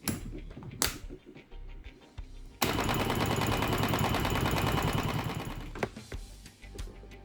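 Bosch GBH 18V-26 cordless rotary hammer drilling concrete in hammer-drill mode with an SDS-plus concrete bit: a fast, loud hammering rattle starts about two and a half seconds in, runs for about three seconds, then dies away. A couple of sharp clicks come in the first second.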